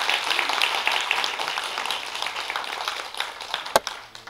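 Applause: many people clapping, thinning and fading out near the end. One sharp knock stands out as the loudest sound shortly before the applause dies away.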